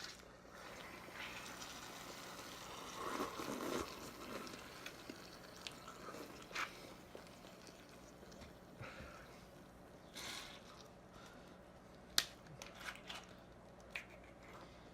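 Faint crinkling and rustling handling noises with scattered small clicks, busiest about three to four seconds in, and one sharp click about twelve seconds in, as a champagne bottle is worked open.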